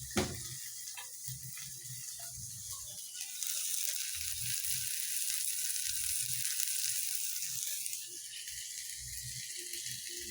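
Food sizzling as it fries in a pan, with a few light knocks in the first second; the sizzle grows louder about three seconds in and eases off again near the end.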